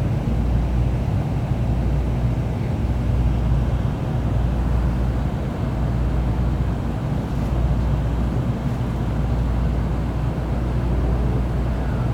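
Steady low hum of a Kodama shinkansen train standing at a station platform with its onboard equipment running.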